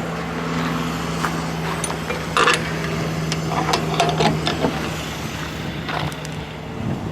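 A steady engine hum, like an idling truck or loading machine, with a few short knocks and clinks over it. The hum stops near the end.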